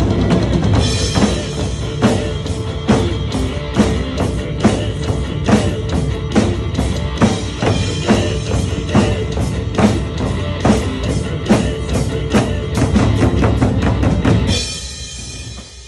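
Large Chinese drums struck in a steady beat over backing music, fading out near the end.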